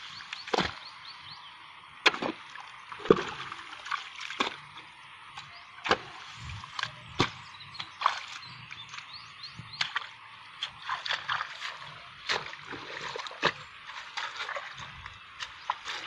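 Irregular splashing and squelching as feet and hands move through shallow muddy water and wet mud, with occasional sharper splats.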